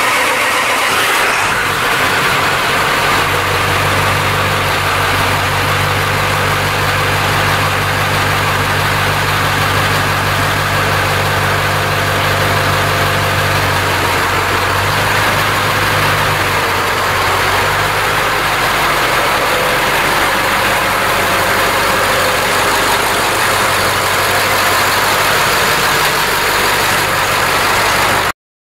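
Pickup truck engine running steadily as the truck is driven slowly out onto the driveway; its low hum changes about halfway through.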